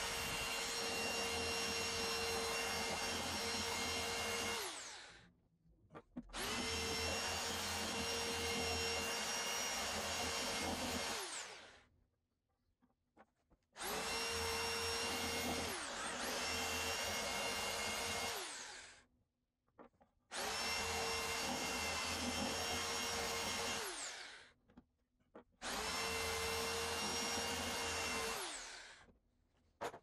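Electric hand drill boring out a hole in a wooden speaker cabinet, run in five bursts of a few seconds each: a steady motor whine with the bit cutting the wood, winding down in pitch each time the trigger is let go.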